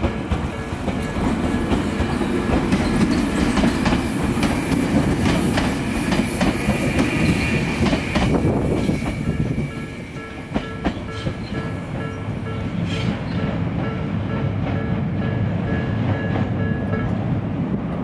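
Japanese level-crossing alarm ringing its repeating electronic bell, the Tobu Nikko-type tone, while a Jomo Electric Railway electric train runs over the crossing with its wheels clattering on the rails. The alarm stops about a second before the end.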